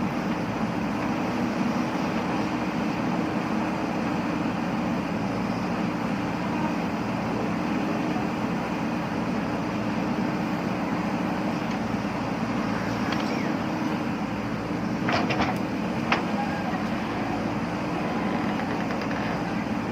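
JCB backhoe loader's diesel engine running steadily while working, with a couple of sharp knocks about fifteen seconds in.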